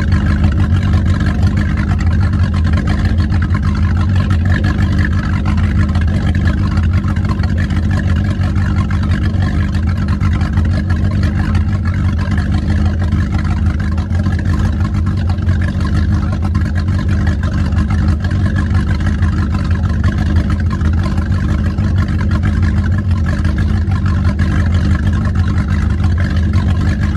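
Old car engine running steadily at a constant speed, a low, even rumble with no revving.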